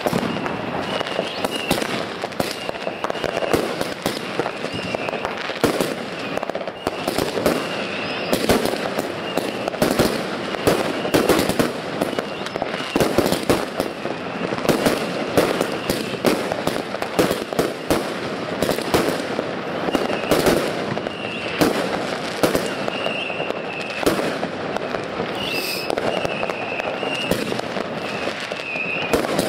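Consumer fireworks going off without pause: a dense, continuous run of bangs and crackles from bursting stars and launching comets.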